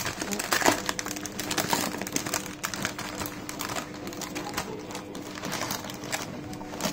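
Thin plastic film of a meat tray crinkling and crackling as it is peeled back and handled, in quick irregular clicks, busiest in the first few seconds. A faint steady hum runs underneath from about a second in.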